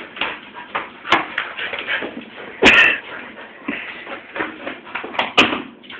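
An otterhound scuffling and jumping at a person's legs on a hard floor: an irregular run of knocks, scrapes and shuffling, with a louder sudden burst about two and a half seconds in and another near the end.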